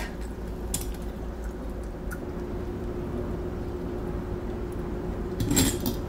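Quiet kitchen room tone with a low steady hum, a few faint clicks, and a brief clatter of handling about five and a half seconds in, as a glass or the phone is moved on the countertop.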